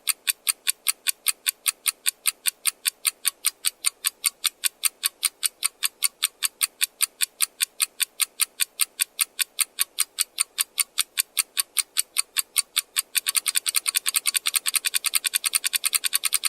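Rapid, even ticking like a clock or countdown-timer sound effect, about four to five ticks a second, speeding up to a faster, denser ticking about thirteen seconds in before cutting off suddenly.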